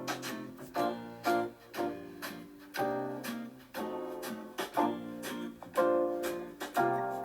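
Instrumental song intro: chords on a plucked string instrument, each struck and left to ring out, roughly one or two a second.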